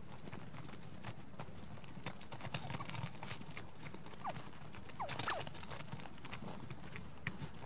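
Wild turkeys pecking grain off the snow close by: irregular sharp taps and clicks, with a few short falling calls from the flock about four to five seconds in.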